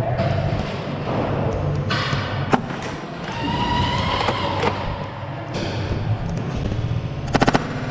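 Foam Nerf Rival balls striking plywood barricades in a large, echoing warehouse: one sharp thud about two and a half seconds in and a quick rattle of four hits near the end, over a steady hall din with a distant voice calling.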